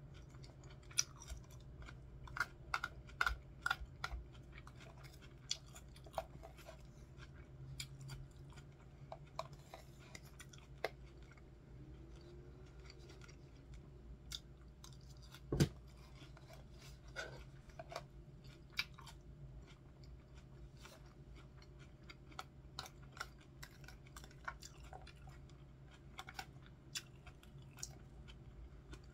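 A person chewing crunchy iceberg lettuce salad close to the microphone: many small irregular crunches and mouth clicks, with one sharper knock about halfway through.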